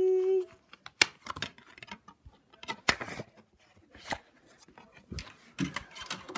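Handling noises: scattered sharp clicks and light knocks with rustling as plastic DVD cases and discs are picked up and moved about on a table, thickening into a quick cluster of clicks near the end.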